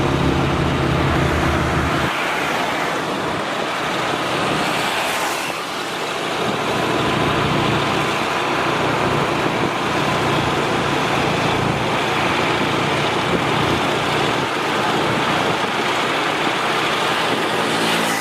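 Nissan Diesel UD truck running loud, its engine note strong for about the first two seconds, then mostly a steady rushing road noise with the engine underneath.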